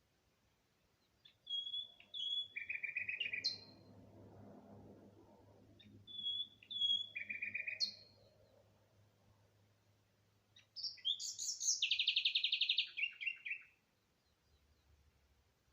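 A songbird singing three similar phrases, each a run of short high notes, a fast trill and a quick upward slide. The third phrase, near the end, is the loudest and longest.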